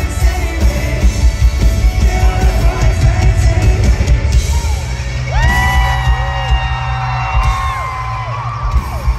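Live rock band playing loud, with electric guitar and a driving drum beat. From about five seconds in, long held yells and whoops from voices rise over the music.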